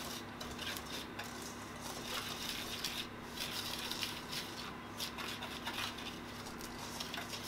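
A utensil scraping and clinking round a stainless steel mixing bowl as cobbler batter of flour, sugar and milk is stirred together, in quick irregular strokes. A faint steady hum runs underneath.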